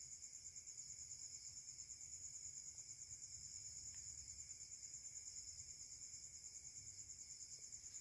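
Faint night chorus of crickets: a steady, high-pitched trilling with a fainter, lower buzz beneath it.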